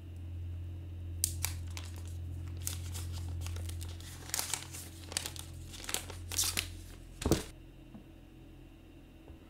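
Clear plastic protective wrap being peeled off a new OnePlus 8 smartphone, crinkling and crackling in the hands in short irregular bursts, with one sharper click about seven seconds in.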